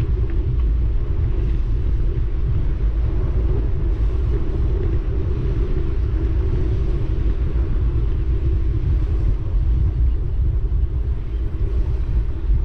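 Steady, loud low rumble of travel along a dirt path, mostly wind buffeting the microphone, with a fainter steady hum above it.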